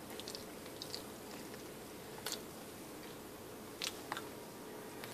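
Quiet background hiss with a faint steady hum, broken by a few short sharp clicks spaced a second or more apart.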